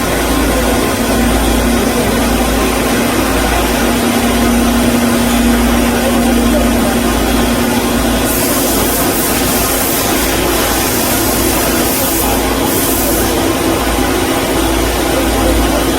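KOTEC Diamond-1000T high-speed band saw machine running steadily with a constant hum. A hiss joins in about halfway through for around five seconds, with a brief break.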